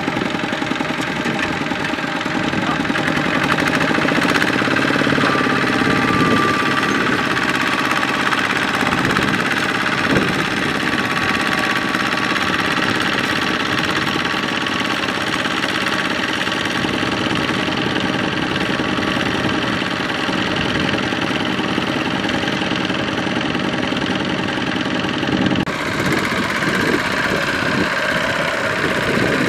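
Single-cylinder diesel engine of a two-wheel walking tractor running steadily under load as it pulls a trailer of rice sacks through mud. The engine's sound changes abruptly near the end.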